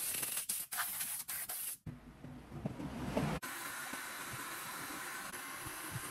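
A compressed-air blow gun fires a quick series of short blasts at a freshly drilled metal part in a milling-machine chuck. Then the milling machine runs steadily while a small drill bit cuts a hole in a metal shaft.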